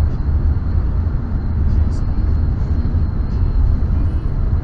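Steady road and engine noise inside a moving car's cabin: a constant low rumble with no breaks.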